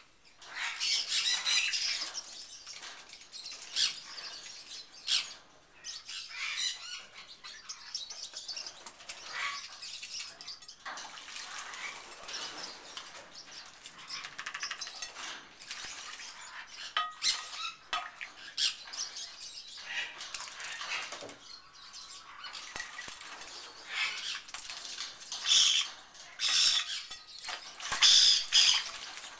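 A channel-billed toucan bathing in a water bowl, beating its wings and dipping its body so the water splashes in irregular bursts. The splashing is loudest about a second in and again in a run of vigorous bouts near the end.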